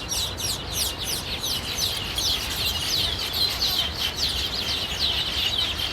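A flock of nesting weaver birds chattering: a dense, continuous run of short, high, falling chirps from many birds at once.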